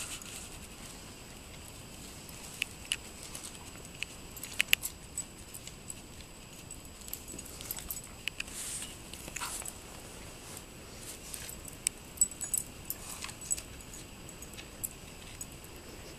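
A dog playing with a stick in snow: scattered sharp clicks and cracks from the stick and its mouth and paws, a few more clustered near the middle.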